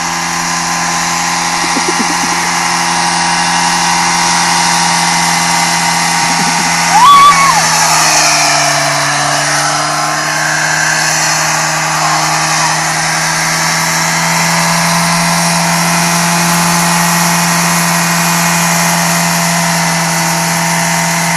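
Car engine held at high, steady revs with the driven wheels spinning in place in a burnout, tyres hissing and squealing against the pavement. A brief louder burst comes about seven seconds in, and the revs sag a little just after before settling again.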